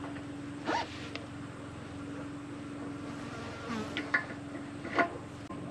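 A free-wheeling hub and its metal parts giving a few sharp clicks and knocks as the hub is worked onto the front axle spindle, over a steady buzzing hum.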